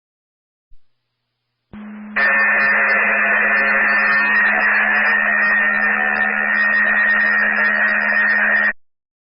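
Two-way radio transmission heard over a scanner, keyed open with no clear words: a loud, steady low hum under a hiss of static. It starts about two seconds in, runs for about seven seconds and cuts off sharply.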